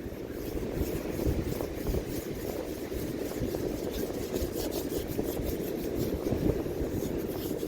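Steady low rumble of wind on the microphone at the beach, with faint scratchy ticks from sand being worked in a dug hole.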